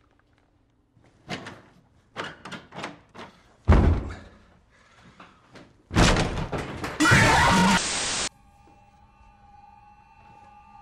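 A run of sharp knocks, then a heavy thud and a loud slam-like crash, followed by a burst of harsh noise that cuts off abruptly. After that a steady, eerie held tone plays at several pitches at once, as in a horror-film score.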